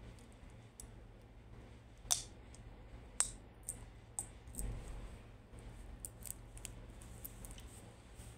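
A metal baking tray clacking as it is slid into an electric cooker's oven: two sharp clacks about 2 and 3 seconds in, lighter clicks after them, and a dull thump about halfway through as the oven door is shut.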